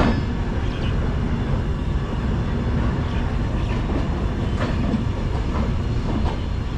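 Passenger train running slowly through a station yard, heard from an open coach door: a steady rumble of wheels on rail with a few sharp clicks as the wheels cross rail joints.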